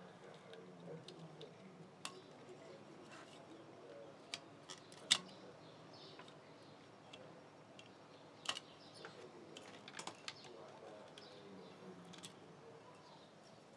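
Scattered light clicks and taps of small hard parts being handled, as in working on a broken headphone, the sharpest about five seconds in.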